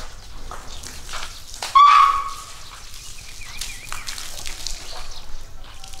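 An Asian elephant gives one short, loud trumpeting call about two seconds in, with faint bird chirps later.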